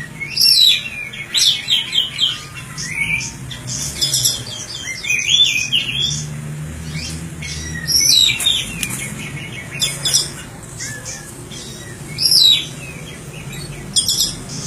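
Songbird singing in rapid bursts of chirps and quick falling whistled notes, repeated every second or two.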